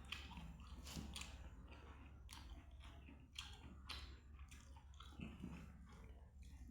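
A person chewing mouthfuls of food. Short, crunchy chews come irregularly, roughly twice a second.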